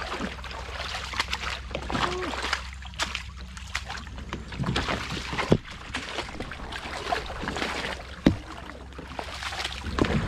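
Kayak being paddled: water splashing and sloshing at the paddle, with irregular small knocks on the hull and two sharper knocks in the second half.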